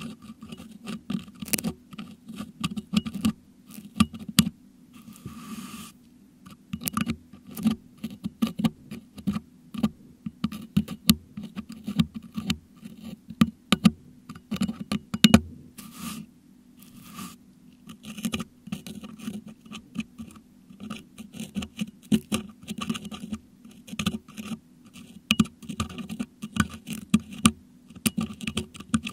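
A metal dental hook scratching and picking at the metal grille of a Blue Yeti microphone, heard close up through that same microphone: a fast, irregular run of sharp clicks and scrapes with a few short pauses, as crushed meringue is worked out of the mesh.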